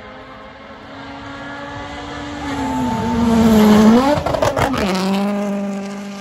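Rally car engine at full throttle, approaching and passing. Its pitch dips and climbs as it nears, and it is loudest about four seconds in, with a quick run of sharp cracks as it goes by. Then the engine note drops lower and fades as it heads away.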